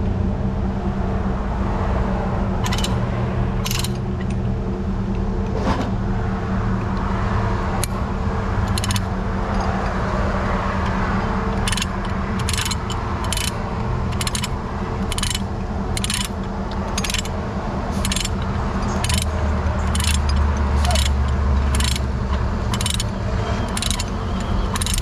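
Truck engine running steadily. A few sharp clicks come early, then from about halfway a regular clicking sets in at just over one click a second. The low rumble swells for a few seconds near the end.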